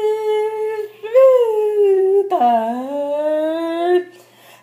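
A woman's voice singing long, wordless held notes along with a signed hymn: three drawn-out notes with short breaks between them, the last rising slowly in pitch before stopping about a second before the end.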